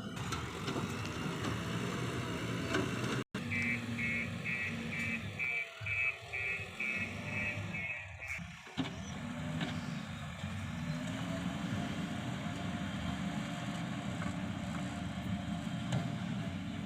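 Backhoe loader's engine running steadily. About 4 seconds in, a fast beeping alarm sounds about four times a second for roughly two and a half seconds.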